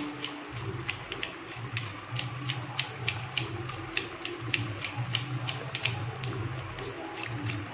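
Thick chicken curry simmering in a pan on a low flame, its gravy popping and spitting in sharp, irregular clicks, several a second, over a low steady hum that comes in about half a second in.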